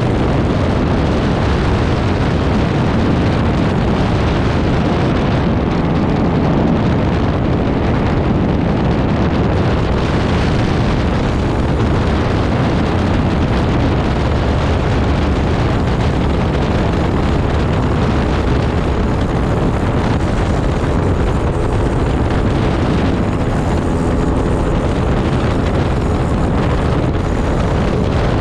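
Aerolite 103 ultralight in steady cruise: loud, unbroken wind rush over the open-cockpit microphone, mixed with the pusher engine's steady drone.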